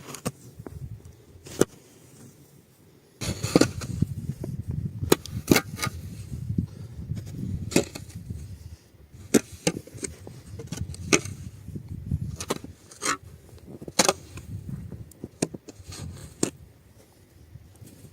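A series of sharp, irregular wooden knocks and clicks, roughly one a second, over a low rumble that starts about three seconds in.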